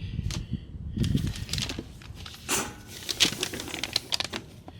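Irregular rustling and light knocks, like materials being handled and moved about on a workbench.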